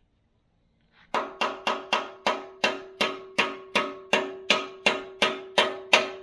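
Hammer striking steel over and over, starting about a second in, nearly three ringing blows a second, typical of driving a pin home through the backhoe bucket's mounting.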